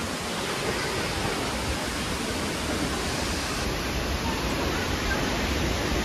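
A large waterfall with several streams pouring over a high rock face: a steady, even rush of falling water.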